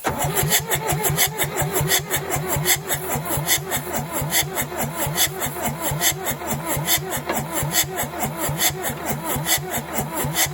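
1963 Case 310F bulldozer's diesel engine cranking on its electric starter, a rapid, even chugging that begins suddenly and keeps going, with engine degreaser sprayed in as a makeshift starting fluid. The long-dormant engine turns over but does not catch.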